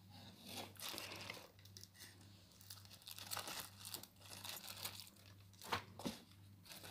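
Faint crinkling and rustling of a clear plastic zip bag as it is handled and lifted out of a cardboard box, in short irregular bursts with a couple of sharper crackles near the end.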